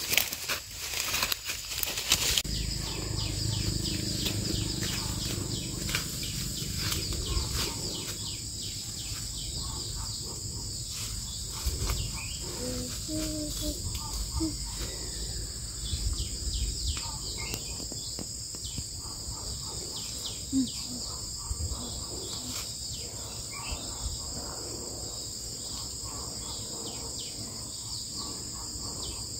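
Steady, high-pitched chorus of forest insects, with irregular rustling and crackling of footsteps pushing through leaf litter and undergrowth. The rustling is loudest in the first couple of seconds.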